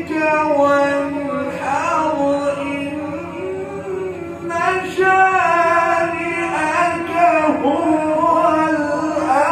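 A male qari reciting the Quran (tilawat) in maqam Bayati, in long held, ornamented notes that glide from one pitch to the next.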